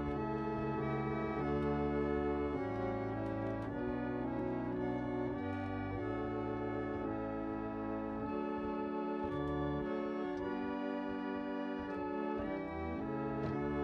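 Organ music: slow, held chords that change every second or two, the bass notes dropping out for a few seconds in the middle.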